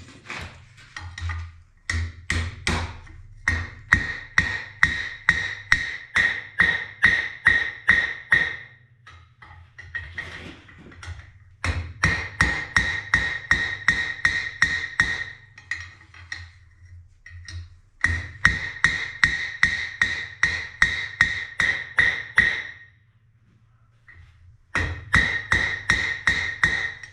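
Hand hammer striking hot steel bar stock on an anvil in runs of about three ringing blows a second, with short pauses between runs. A low steady hum sits underneath.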